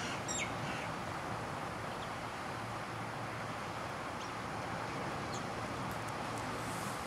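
Garden ambience: a steady faint hiss, with a few faint, short high-pitched bird chirps now and then.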